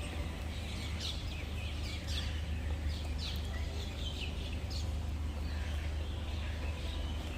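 Small birds chirping: many short, quick falling chirps scattered throughout, over a steady low hum.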